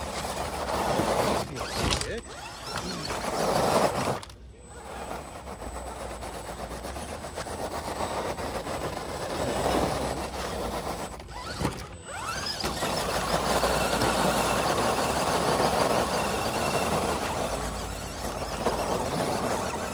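Radio-controlled scale rock crawler's electric motor and geared drivetrain running in surges as it climbs a steep granite slab, its lugged tyres scrubbing on the rock. There are two short breaks.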